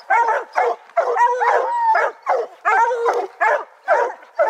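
Several dogs barking at a treed bear: a rapid, continuous chop of short barks, about three a second, the voices overlapping.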